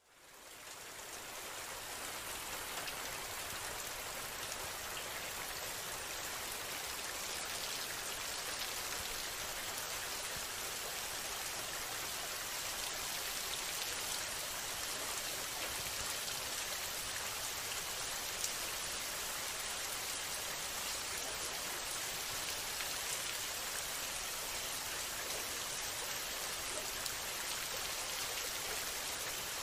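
Steady rain with faint scattered drop ticks, fading in over the first couple of seconds and then holding even.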